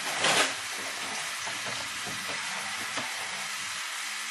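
Meat rolls frying in oil in a pan, a steady sizzle, with a louder burst of sizzling shortly after the start as fresh oil is poured into the hot pan.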